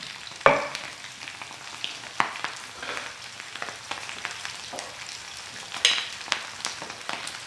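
Pork belly cubes frying in their own rendered fat in a wok: a steady sizzle with scattered crackles and pops, and a couple of sharper clicks, about half a second in and about six seconds in.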